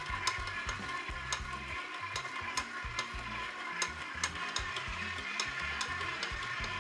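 Stand mixer running with its dough hook kneading a stiff carrot dough, the dough slapping and knocking against the stainless steel bowl in irregular clicks over the low hum of the motor.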